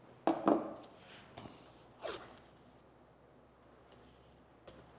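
Blue painter's tape being pulled off the roll and pressed onto a wooden rudder, a zipper-like rasp. The rasps come in short pulls: the loudest near the start, another about two seconds in, and a small click near the end.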